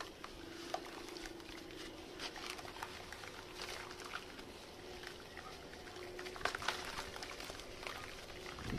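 Dry red sand chunks crumbling and crunching, as a scatter of small crisp crackles with a busier run of louder cracks near the end. A faint steady low hum runs underneath.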